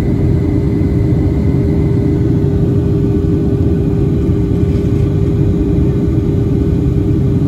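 Cabin noise of a Boeing 737-800 in flight on approach: a steady, loud rumble of airflow and its CFM56 engines, with a constant low hum over it.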